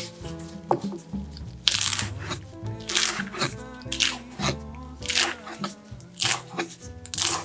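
Chef's knife slicing through a bundle of culantro leaves onto a bamboo cutting board: a series of sharp chops, roughly one every half second to second, over background music.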